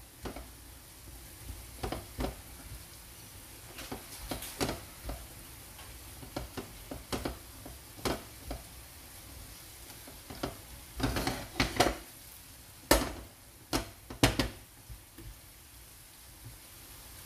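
Silicone spatula stirring and scraping sautéing shrimp paste (bagoong alamang) in a nonstick frying pan. Irregular scrapes and taps sound over a low steady sizzle, busiest about 11 to 14 seconds in.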